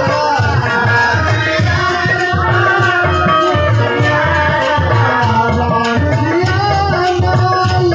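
Folk music with a voice singing over a regular drum beat and shaken, rattling percussion.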